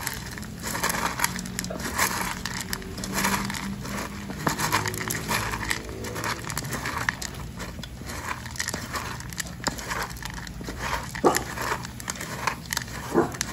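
A hand mashing canned beef-and-liver wet dog food into dry kibble in a bowl: repeated squishing with the kibble crackling and clicking as it is worked in.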